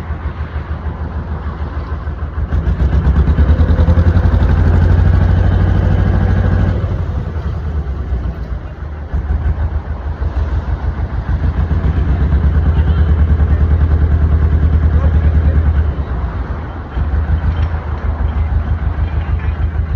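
A canal boat's diesel engine chugging steadily with an even low pulse. It grows louder twice, from a few seconds in and again in the middle, as the throttle is opened.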